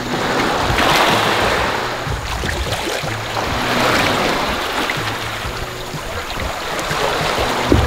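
Wind and sea water rushing on an open boat at sea, swelling and easing over a few seconds, with a low steady hum underneath.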